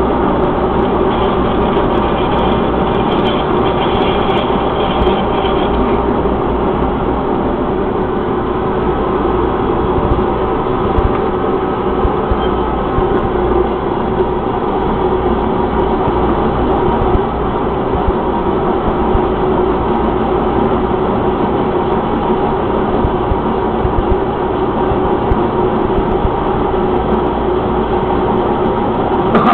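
Metalworking machine tool running steadily as it machines an aluminum handlebar, with a faint high whine in the first few seconds.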